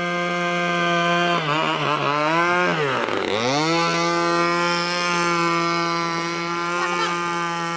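RC racing boat's engine running at high revs with a steady high-pitched buzz. About a second and a half in, the pitch wavers and sinks, reaching its lowest about three seconds in, then climbs back to the same steady pitch.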